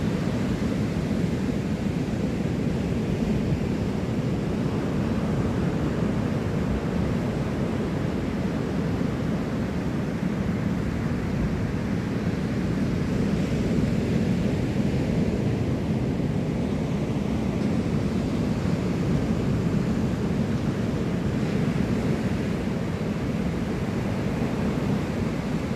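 Ocean surf breaking, a steady low rushing noise, with wind rumbling on the microphone.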